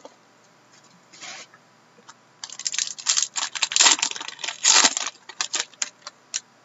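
A trading-card pack wrapper being torn open and crinkled: a dense run of crackling and ripping starts about a third of the way in and lasts a couple of seconds. A few light clicks follow as the cards are handled.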